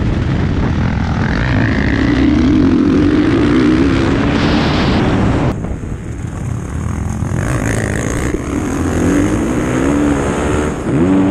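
Motocross bike engine revving up and down as the rider works the throttle through the gears, mixed with heavy wind rush on the action camera. The sound turns duller and quieter abruptly about halfway through, and the revs climb sharply near the end.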